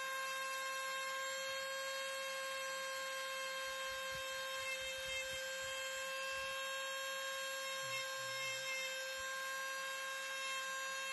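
Ryobi corded rotary tool running with a steady high-pitched whine as its small burr grinds into the wood of a hiking stick.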